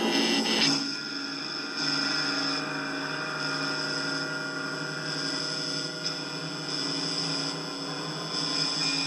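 A steady electronic drone of many held tones layered together, its texture shifting every second or two.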